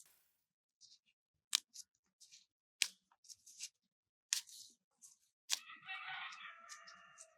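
Sharp snipping clicks, four loud ones spaced a little over a second apart with fainter ticks between, then a held tonal call or whine lasting about two seconds near the end.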